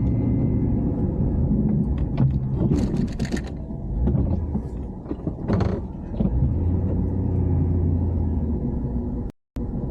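2500HD pickup truck with a snow plow, running as it plows, heard from inside the cab: a steady low engine rumble with a few brief clatters. The sound drops out completely for a moment near the end.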